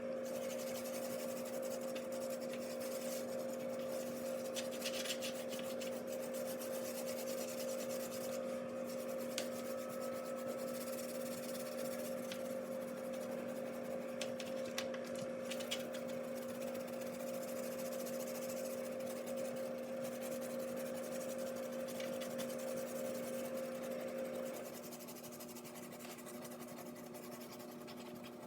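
A wet dishwasher tablet rubbed back and forth over oven door glass, with faint scratchy scrubbing and small clicks, over a steady background hum; part of the hum cuts out near the end and it gets a little quieter.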